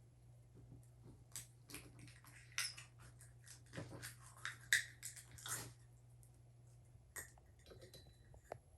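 Hands taking small slime add-in cubes out of their plastic packaging and working them into slime: scattered small clicks and crinkles, over a low steady hum.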